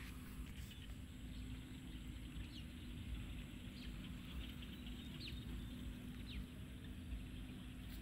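Quiet outdoor ambience: a low steady rumble, with a few faint, short bird chirps now and then.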